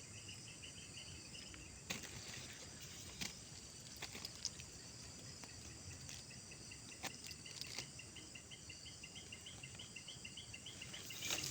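Insects chirping outdoors: a steady high-pitched drone with a rapidly repeating pulsed chirp that grows busier near the end, with a few sharp clicks.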